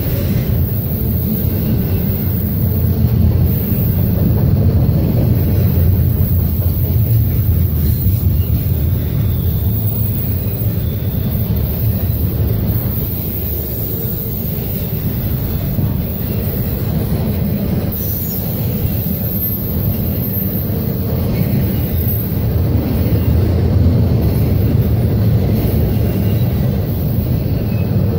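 Intermodal train's loaded well cars rolling past, a steady low rumble of steel wheels on the rails.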